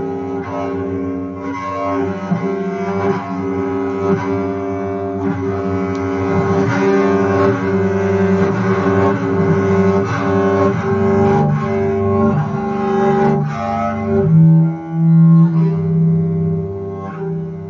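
Solo double bass played with the bow: sustained notes, often two or more sounding together, broken by frequent short, scraping strokes. A strong low note swells out near the end.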